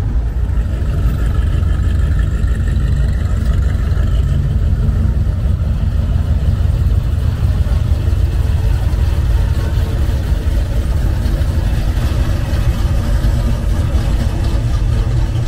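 Classic muscle cars, a grey early-1970s Buick and then a 1970–72 Chevrolet Chevelle, driving past slowly one after the other, their engines running with a deep, steady exhaust note.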